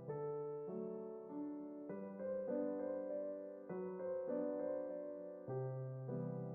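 Background piano music: a melody of sustained notes over chords, moving to a new note roughly twice a second.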